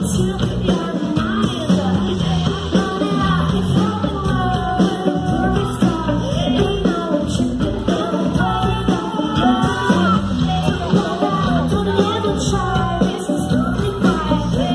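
Rock band playing live: a woman singing lead over electric guitars, bass, drums and keyboards.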